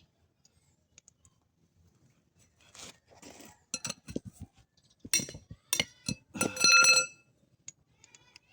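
Metal tools and parts clinking and scraping in short irregular knocks. Near the end comes a louder ringing metallic scrape lasting under a second. No engine is running.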